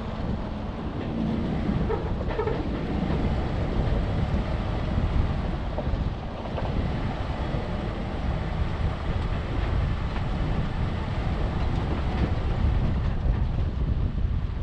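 Off-road 4x4 vehicle driving on a trail: a steady low rumble of engine and tyres, with wind buffeting the microphone.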